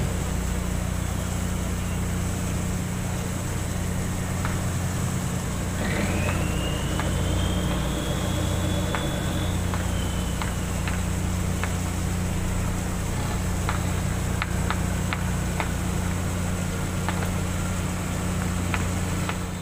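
Boat diesel engine running steadily, a low even drone with a deep hum. About six seconds in, a thin whistle rises and holds for a few seconds, and faint light clicks come and go.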